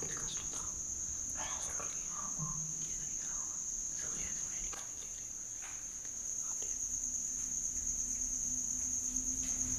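Crickets trilling: one steady, high-pitched note that holds without a break.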